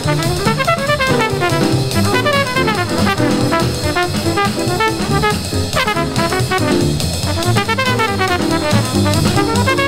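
1950s bebop jazz quintet record played back on a turntable: a trumpet lead plays fast runs up and down over walking bass and drum kit.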